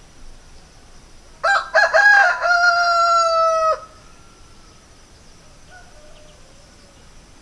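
A rooster crowing once, starting about a second and a half in: a few short broken notes, then a long held final note that stops abruptly after about two seconds.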